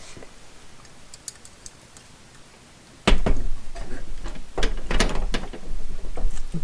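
Handling noise from a light being grabbed and set in place: a few faint ticks, then about three seconds in a sudden bump with a low rumble, followed by several sharp knocks and clicks.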